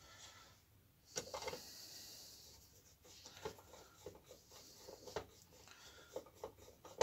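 Faint clicks, taps and scrapes of a screwdriver driving small screws into the metal body of a Salter parcel scale, with a couple of sharper knocks about a second in.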